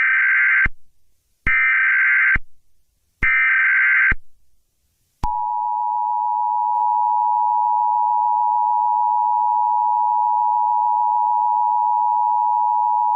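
Emergency Alert System opening: three short bursts of the SAME data header's harsh digital screech, each just under a second with brief gaps, then about five seconds in the steady two-tone EAS attention signal begins and holds.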